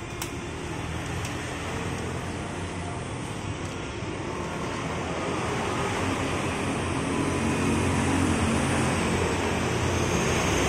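Steady road traffic noise that grows slowly louder, with a low hum of passing engines and a single faint click near the start.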